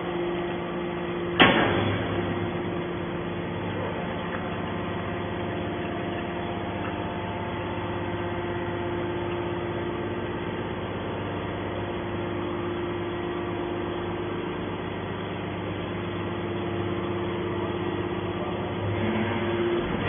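Hydraulic scrap metal baler running steadily under load as its push-out cylinder ejects a compressed bale, a steady hum with several fixed tones. A single sharp bang comes about a second and a half in.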